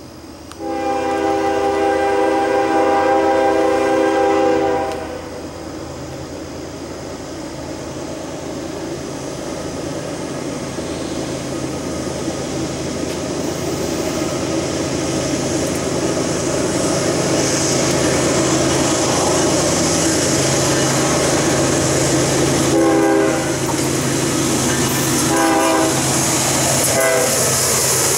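Norfolk Southern freight train led by GE ES44DC and D9-44CW diesel locomotives sounds a long horn blast of about four seconds. Its engine and wheel noise then grow steadily louder as it approaches and passes. Three short horn toots come near the end, the last one dropping in pitch as the locomotive goes by.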